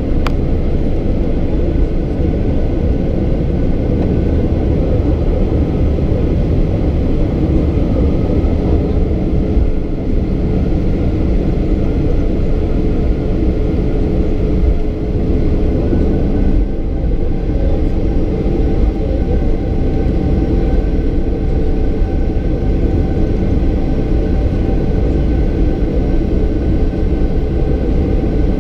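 Boeing 737-800's CFM56-7B jet engines and airflow making a steady, loud rumble with several held engine tones, heard from inside the cabin. About halfway through, the engine tones shift and grow stronger.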